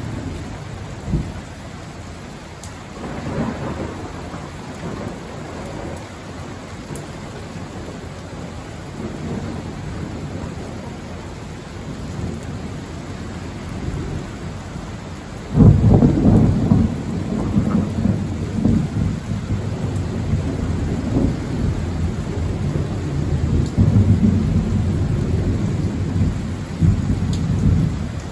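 Steady rain with thunder: a low rumble about three seconds in, then a sudden loud clap about halfway through that keeps rolling and rumbling on.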